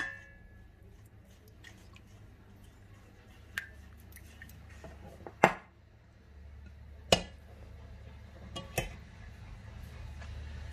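A hand mixing liquid in an enamel bowl, faint sloshing with five or six sharp clicks and knocks against the bowl, spaced a second or two apart.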